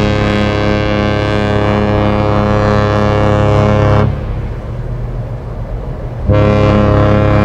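AIDAnova's ship horn giving two long, steady blasts: the first cuts off about four seconds in, and the second starts about two seconds later.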